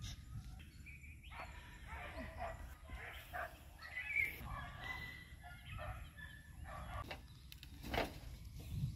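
Farmyard animal calls: short, scattered pitched calls from animals such as birds and chickens over a low steady rumble, with a sharp knock about eight seconds in.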